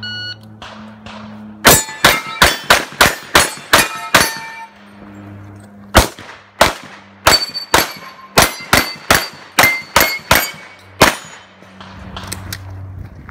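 A shot timer's start beep, then rapid pistol fire from an Open Division race gun in two quick strings with a pause between, many shots followed by the ring of steel plate targets being hit.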